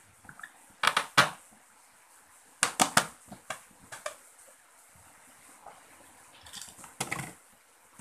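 Hard plastic parts of a refrigerator's freezer compartment clicking and knocking as the cover and housing are handled and fitted back into place: two sharp knocks about a second in, a quick cluster near three seconds, and a few more near the end.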